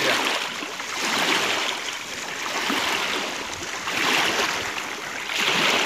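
Small waves washing in over a stony shoreline, swelling and falling back about every one to two seconds.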